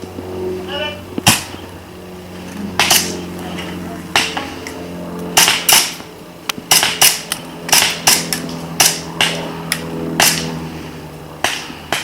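Airsoft guns firing single sharp pops at irregular intervals, some in quick pairs, coming more often in the middle of the stretch.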